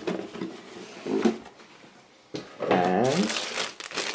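Clear plastic bag holding model-kit sprues crinkling as it is handled, starting about three seconds in.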